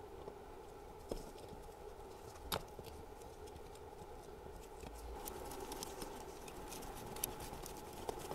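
Light clicks and knocks of an alternator's copper-wound stator being fitted by hand onto its metal housing, the sharpest about two and a half seconds in, with small ticks later on, over a faint steady hum.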